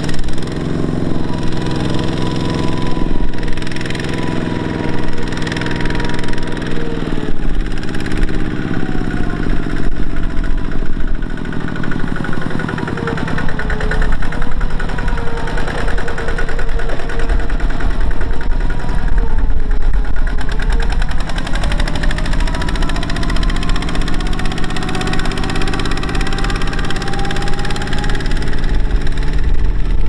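Kubota single-cylinder diesel engine of a two-wheel walking tractor running hard as it hauls a trailer of rice sacks through wet mud. Its engine note dips about halfway through and climbs again.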